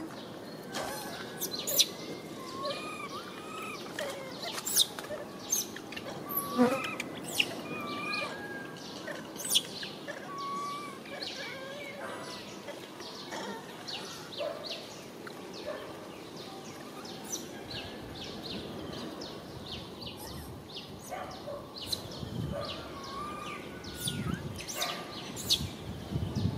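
Outdoor ambience: short, rising and falling bird chirps and scattered sharp clicks over a steady background hiss.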